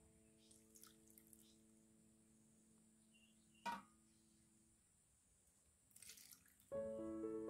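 Faint splashing and dripping of sugar syrup ladled over mango slices in a glass jar, with a single sharp clink of the ladle against the aluminium pot a little past halfway. The tail of soft music fades out in the first half, and piano music comes in near the end.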